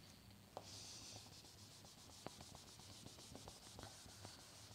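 Faint rubbing of a cloth wiping a whiteboard, starting about half a second in, with a few light ticks along the way.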